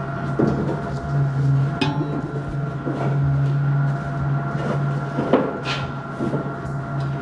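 Steady low hum under scattered knocks and clanks of objects being handled, with one sharp metallic click about two seconds in.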